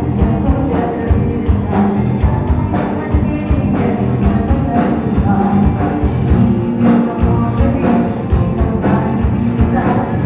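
A folk-rock band playing live, drums and amplified instruments heard from the audience floor of the hall.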